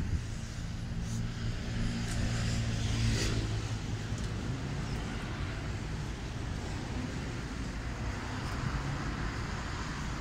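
Road traffic: a car engine passing close, loudest about three seconds in, over steady traffic noise.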